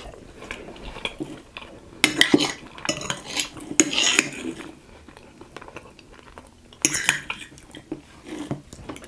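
Metal fork scraping and clinking against a plate while the last of a slice of cheesecake is gathered up. It comes in clusters of sharp clicks and scrapes about two to four seconds in and again near seven seconds.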